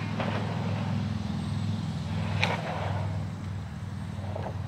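Pickup truck engine running with a steady low rumble, with a single sharp click about halfway through.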